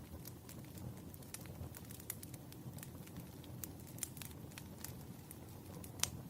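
Wood fire crackling: irregular sharp pops and ticks over a low rumble of burning logs, with one louder pop near the end.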